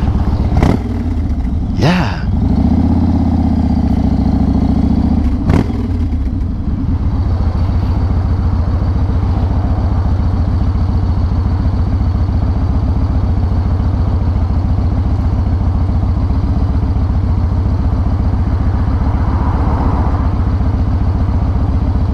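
Yamaha Raider's big air-cooled V-twin running as the bike rolls to a stop, with three sharp knocks in the first six seconds, then idling steadily with an even low pulse from about six seconds in.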